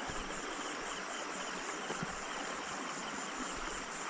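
Steady high, pulsing trill of night insects such as crickets, over the even rush of a flowing stream.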